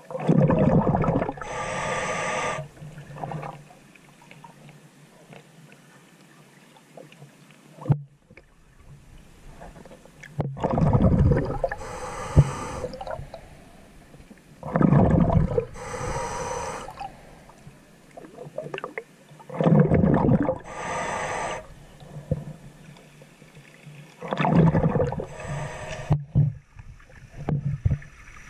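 A scuba diver breathing through a regulator, heard underwater: five cycles of an inhale followed by a rush of exhaled bubbles, with a longer pause after the first.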